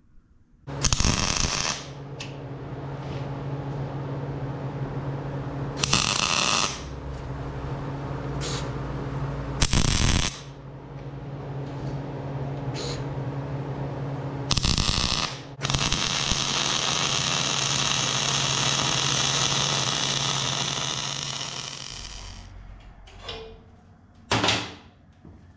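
MIG welder welding a steel foot plate onto an upright steel bar: several short, loud bursts of arc crackle, then one continuous bead of crackling lasting about six seconds, over a steady low hum. A couple of knocks near the end.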